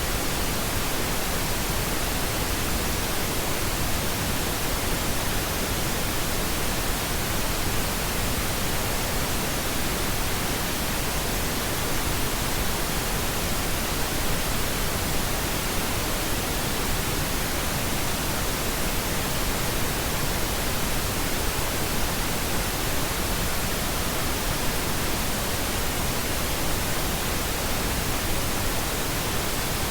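Steady synthetic pink noise: an even, unchanging hiss spread across the whole range, without any tones or events.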